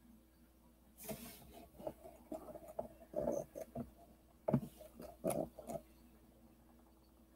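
Faint, irregular clicks, knocks and rustling from handling things at a computer desk, in a cluster lasting a few seconds, starting about a second in and dying away about six seconds in.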